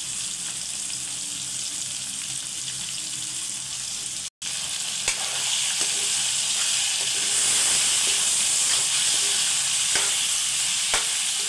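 Mutton pieces and liver sizzling in hot oil with onions and tomatoes in a kadai, stirred with a metal spoon that scrapes and gives a few sharp taps against the pan. The sizzle cuts out for an instant a little over four seconds in, then comes back louder.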